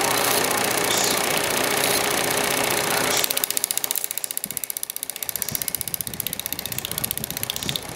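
Kart engines running: a steady engine drone that changes abruptly about three seconds in to a rapid, evenly pulsing idle.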